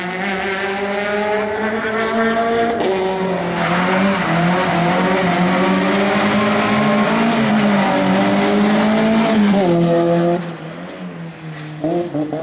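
Rally car engines running hard at full throttle, their pitch stepping and sliding through gear changes, with a rushing noise over the engine from about three and a half seconds in. The sound drops off suddenly about ten seconds in, and another rally car's engine comes in near the end.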